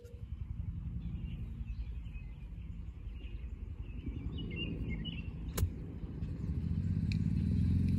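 A golf iron strikes a rubber bouncy ball once, a sharp click a little past halfway through. Under it an engine hums steadily, growing louder near the end, and birds chirp faintly.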